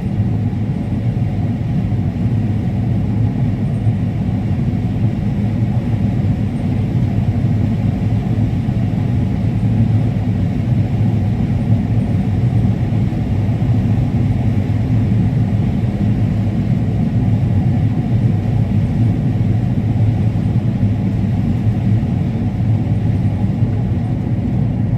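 Combine harvester running steadily under load while harvesting corn: an even, unchanging low rumble.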